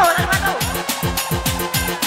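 Electronic dance music played by a DJ, with a fast, steady kick-drum beat and a short sliding synth or vocal sweep about half a second in.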